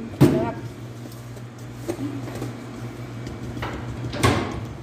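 Rubber spatula scraping through egg yolk batter and against a stainless steel mixing bowl, with a small knock about two seconds in and a quick, louder scrape near the end, over a steady low hum.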